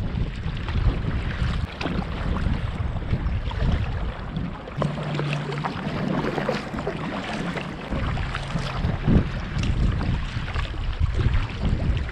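Wind buffeting the microphone over the splash and trickle of water around a paddle boat on a fast, flooded river, with a steady low hum for about three seconds in the middle.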